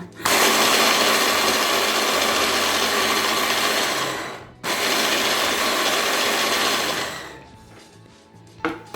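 Electric grinder running at full speed, grinding lemon peel into fine zest, in two runs of about four seconds and two and a half seconds with a short pause between them, then winding down.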